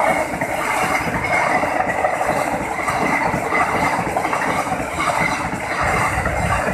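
KAI Argo Dwipangga passenger train's coaches passing close by at speed, with a steady, loud noise of steel wheels running over the rails.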